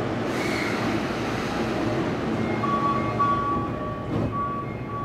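Toei 10-300 series subway train heard from inside the passenger car, running with a steady rumble. About two and a half seconds in, a high steady tone joins it, breaking off and returning a few times.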